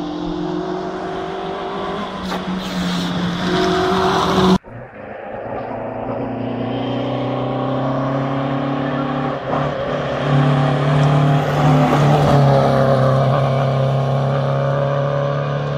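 Rally car engines on a gravel special stage: one car's engine held at high revs as it approaches, cut off abruptly about four and a half seconds in, then another rally car's engine building up as it comes closer, loudest past the middle and easing off near the end.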